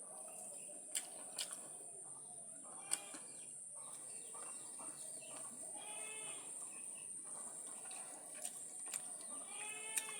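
A meal being eaten: a few sharp clicks on a plate over a steady high whine, with two short animal calls, one about six seconds in and one near the end.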